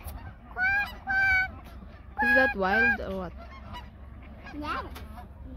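A flock of geese honking: a series of about six separate honks, the loudest in the first three seconds and a fainter one near the end.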